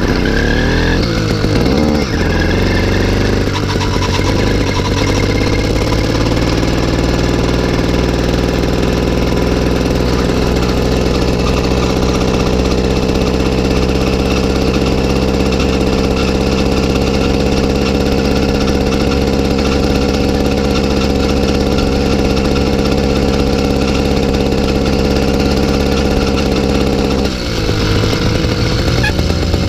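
Chinese 66/80cc two-stroke bicycle kit engine catching when the clutch is popped, then revving up over the first few seconds and running steadily under way. The revs drop briefly near the end and pick up again.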